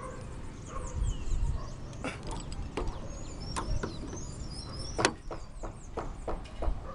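Steel pipe wrench working a loose roofing bolt on a fibre-cement roof: a few sharp metal clicks and knocks as the jaws slip and bite, the loudest about five seconds in, over a low rumble.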